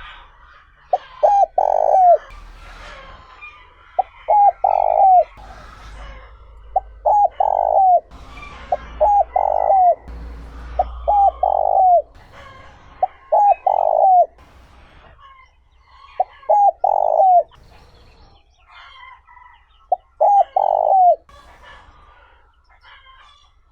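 Spotted dove cooing its song over and over: each phrase is a couple of short coos and then a longer coo that drops at the end, with the phrases coming about every two to three seconds. Faint chirps of small birds sound behind it.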